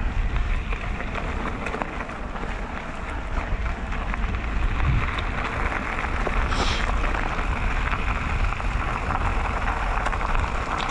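Mountain bike rolling downhill on a loose gravel and stone track: steady tyre crunch and chatter over the stones, with wind rumbling on the microphone. A brief high squeak about six and a half seconds in.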